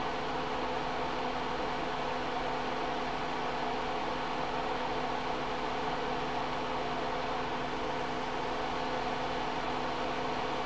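Steady whir of a small electric fan, with a low hum underneath.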